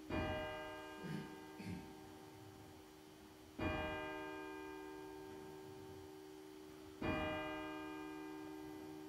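A single church bell tolled by hand from a rope below. It strikes three times, about three and a half seconds apart, and each stroke rings on and fades slowly before the next.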